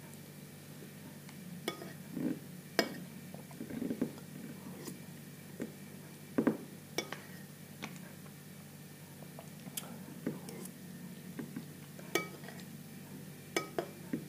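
Metal spoon clinking and scraping against a ceramic bowl of semolina porridge as it is scooped and eaten: about a dozen sharp clinks at irregular intervals.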